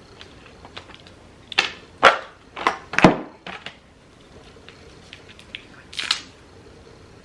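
Eating sounds from peeling and eating shrimp and crab by hand: a quick run of about five sharp snaps and wet smacks a second or so in, and one more near the end.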